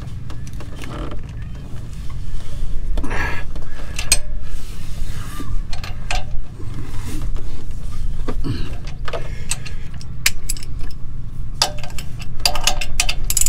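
Clicks and metallic clinks from a socket and breaker bar being worked on the lower mounting bolt of a Ford F550's front shock absorber. The clicks come in a quicker run near the end, over a steady low rumble.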